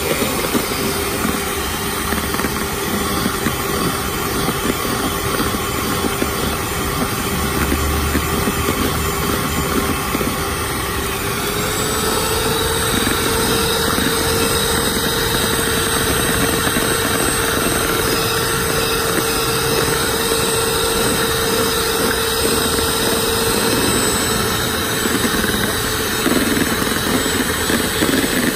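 Miyako electric hand mixer running steadily, its twin beaters whipping a pink cheese drink mix in a plastic bowl until it thickens and froths. Its motor whine steps up slightly in pitch about twelve seconds in.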